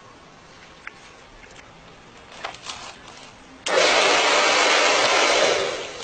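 A hair dryer switched on suddenly and blowing steadily for about two seconds, then dying away as it is switched off. A few faint knocks and rustles come before it.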